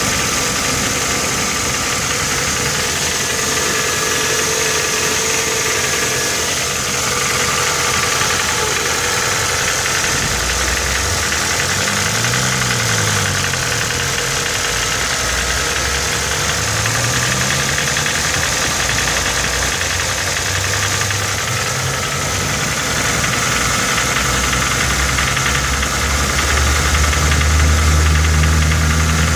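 Ford Focus Mk1 2.0 Zetec four-cylinder engine running with a knock. It is revved up and down a couple of times around the middle and held at higher revs near the end.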